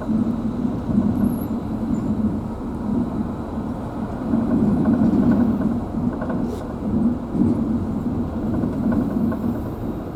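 Vehicle's engine and road noise heard from inside the cabin while driving: a steady rumble that swells and eases a little.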